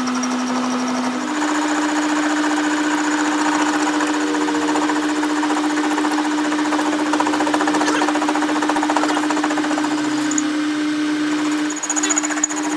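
A workshop machine's motor running steadily with a fast, even rattle. Its pitch steps up slightly about a second in, and the sound dips briefly near the end.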